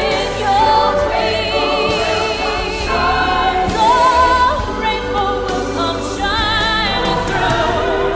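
Fireworks show soundtrack: a choir singing long held notes with vibrato over music.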